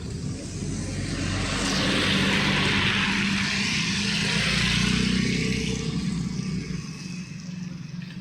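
A motor vehicle passing close by: a low engine hum with a hiss that swells over the first couple of seconds and fades away again by about seven seconds in.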